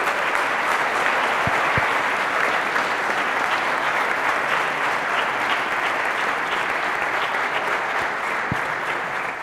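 Audience applauding: steady, dense clapping from a roomful of people, with a few soft low knocks mixed in.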